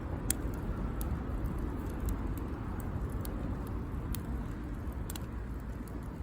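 Wood campfire crackling, with sharp pops at irregular moments over a steady low rumble.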